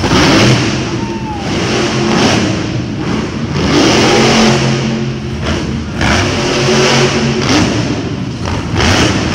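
Monster truck's supercharged V8 engine revving hard and dropping back several times, surging about once a second.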